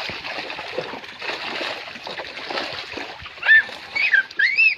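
Water splashing and churning steadily. Near the end come three or four short, loud, high squeals that rise and fall in pitch.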